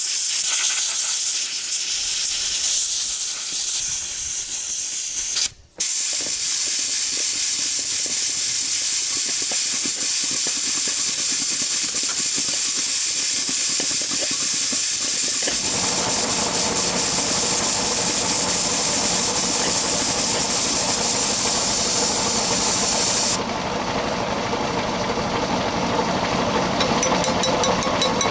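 A loud, steady hiss that breaks off briefly about five seconds in. About halfway through, a lower, rougher machine noise joins it. The hiss stops suddenly a few seconds before the end, and the machine noise keeps going.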